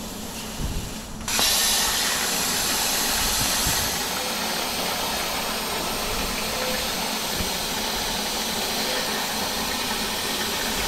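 Plasma cutter torch on a CNC plasma table firing up about a second in and cutting 2 mm stainless steel sheet: a sudden loud, steady hiss of compressed air and arc that holds on, a little quieter after the first few seconds.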